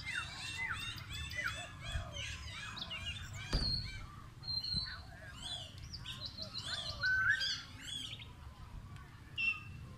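Many small birds chirping and twittering together, with overlapping short high calls and quick pitch glides. A single sharp knock about three and a half seconds in.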